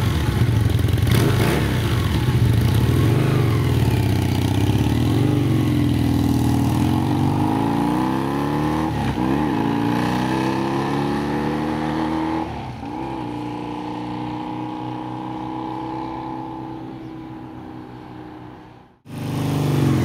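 1980 Honda CM400's air-cooled parallel-twin engine, its carburetors freshly synchronized, running as the motorcycle rides off: the engine note rises and falls several times with throttle and gear changes, then sinks and fades away. Just before the end the sound cuts off abruptly and a nearer, louder engine comes back.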